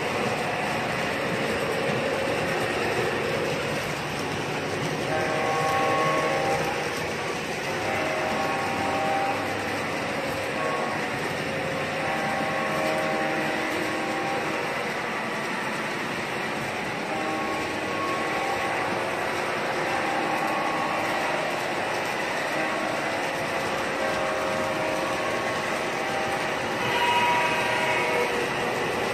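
MTH O-gauge model trains running on three-rail track: a steady rumble and wheel clatter, with short tones sounding every second or two and a louder passage near the end.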